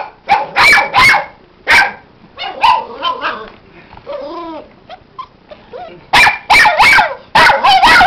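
A black-and-tan puppy barking in sharp, short barks. A few barks come in the first three seconds, there is a lull around the middle, and then a quick run of barks starts at about six seconds.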